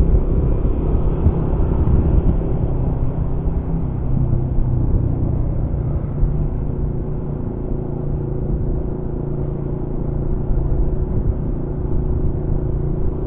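Honda CB150R motorcycle's single-cylinder engine running at a steady cruise, with a low rumble of wind and road noise.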